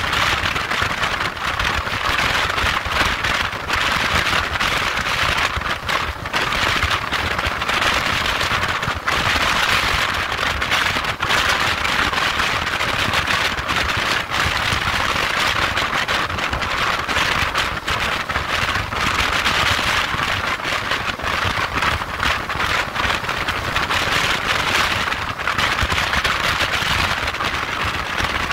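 Wind rushing over the microphone of a motorcycle at motorway speed: a steady hiss with crackling buffets, and a low rumble of engine and tyres underneath.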